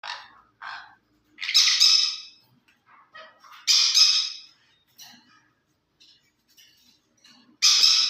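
Ringneck parakeet squawking: three loud, harsh calls a few seconds apart, with softer, shorter calls between them.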